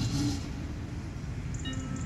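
Low rumble of an approaching DB Class 628 diesel multiple unit as it runs into the station. Near the end, the station's multi-tone announcement chime starts to ring, the gong that comes before a platform announcement.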